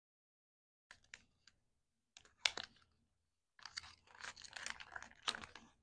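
Folded paper toy-instruction leaflet from a Kinder Joy egg crinkling as it is unfolded by hand: a few light crackles about a second in, one sharp crackle near halfway, then a longer run of crinkling with a sharp crackle near the end.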